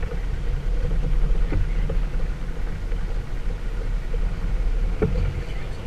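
A small motorboat running underway: a steady engine drone and low rumble of the hull moving through the water, with a couple of knocks.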